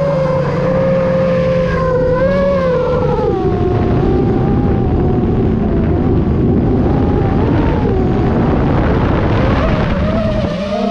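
Motor and propeller of an FPV gyrocopter heard from the onboard camera in flight, its pitch wavering up and down as the throttle changes. A rush of wind over the camera swells from about three seconds in, nearly masking the motor until near the end.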